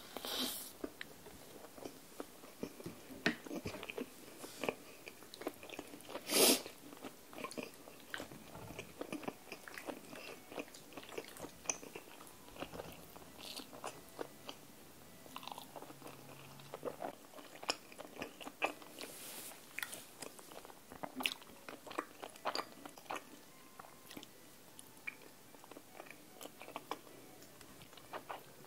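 Close-miked eating sounds: a bite of a seaweed-coated rice ball near the start, then chewing with many short wet clicks and smacks. There is a louder burst about six seconds in.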